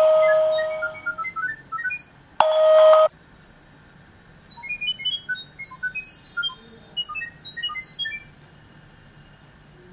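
Rapid chirps of short electronic tones at scattered, changing pitches: a sound-wave Wi-Fi pairing signal sending the network details to the IP camera while setup runs. A loud steady electronic beep sounds until about a second in and again briefly near three seconds in; the chirping stops near the end.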